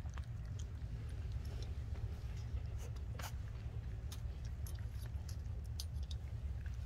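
Four-week-old golden retriever puppies crunching dry kibble from a stainless steel feeding pan: many small, irregular crunches and clicks over a steady low rumble.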